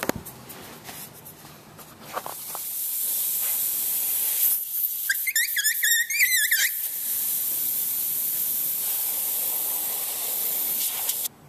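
Pressurised gas hissing out through a leaking spot weld on a stainless steel bulk milk tank evaporator: the sign of a crack around the weld. The hiss starts about two seconds in and cuts off suddenly near the end, with a wavering squeal over it for a moment midway.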